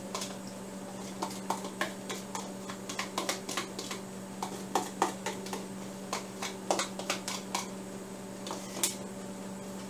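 Light, irregular clicks and scrapes of a spoon against a small plastic prep cup as ketchup is scraped out into a glass mixing bowl. A steady electrical hum runs underneath.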